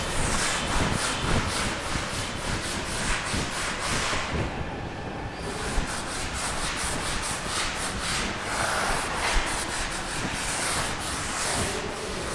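Blackboard being wiped with a duster: repeated back-and-forth rubbing strokes on the chalkboard, with a short pause about four seconds in.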